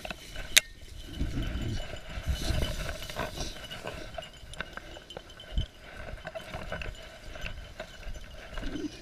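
Footsteps and rustling of a person pushing through dry, tall grass, with a sharp click about half a second in as the loudest sound and a dull thump a little past halfway.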